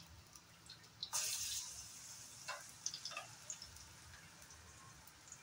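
Dal vadas frying in oil in a nonstick pan, turned with a metal spatula: light clicks of the spatula against the pan, a burst of sizzling about a second in that slowly dies down, then faint crackling and popping.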